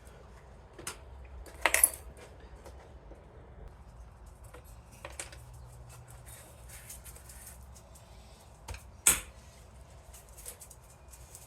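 Small metal parts of an old electric organ clinking and clicking as they are handled, with a few sharp clinks, the loudest one late on, over light scattered ticking.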